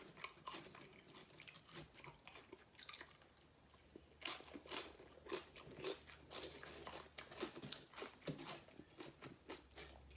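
A person chewing crunchy tortilla chips, faint scattered crunches with a sharper bite about four seconds in.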